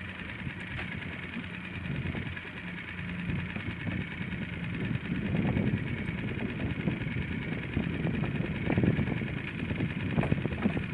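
Small fishing boat's engine idling with a steady low hum, joined by a rougher low rumble that grows louder about halfway through.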